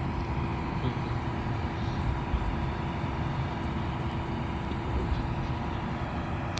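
Steady vehicle rumble: engine and traffic noise, with a faint constant hum and no sharp events.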